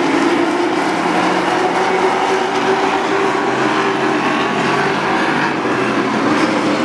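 A field of race trucks running at speed around a short oval, several engines blending into one steady sound.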